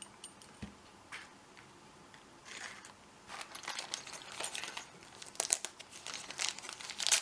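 Wrapping being pulled open by hand, crinkling and tearing in irregular bursts that start about two and a half seconds in and get busier and louder toward the end, after a quiet start with a few small clicks.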